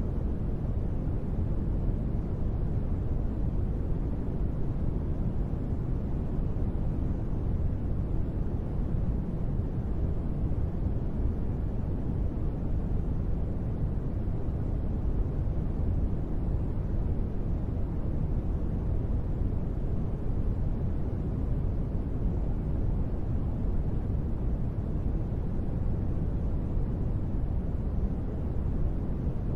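Steady sleep noise: a deep, even rush with most of its weight in the low end and little treble, like brown noise more than bright hiss. It does not change.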